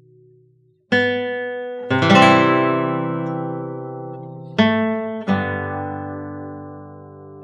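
Background music: an acoustic guitar strumming four chords, each left to ring and slowly fade.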